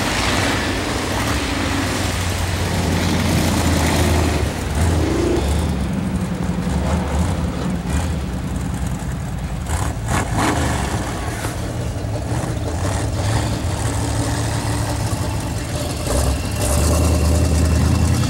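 Rear-wheel-drive race car engines running and revving around a snow-covered ice track, the pitch rising and falling as the cars accelerate and ease off, growing louder near the end.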